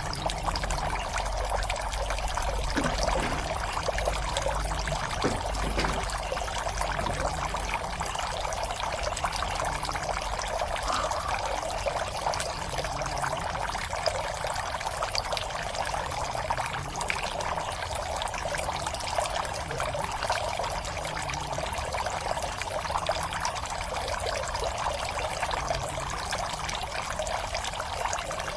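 Water steadily pouring and trickling into a fish pond, an even splashing.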